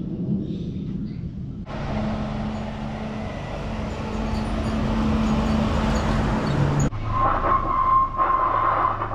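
Street traffic noise of engines running, changing abruptly twice where the footage is cut, with a steady high whine added in the last couple of seconds.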